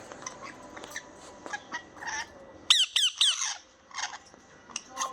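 Pet lovebirds chirping: scattered short high chirps and clicks, with a burst of three or four loud, sharp squeaky calls that each drop in pitch, about halfway through.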